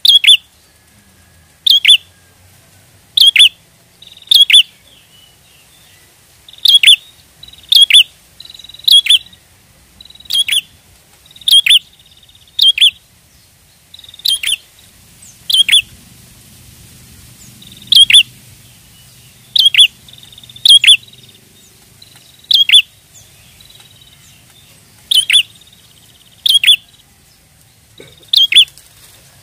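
Prinia (prenjak) calling: a long series of sharp, loud chirps, each a quick downward sweep, one every second or two and sometimes in quick pairs.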